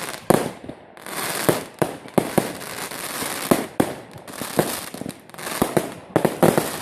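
Fireworks going off: a dozen or so sharp bangs in quick, irregular succession over a steady crackling hiss.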